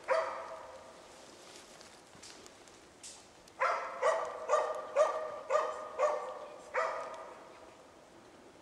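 Moose-hunting dog baying at a moose cow and calf it is holding at bay: one bark at the start, then a run of about seven barks at roughly two a second, each trailing off in an echo.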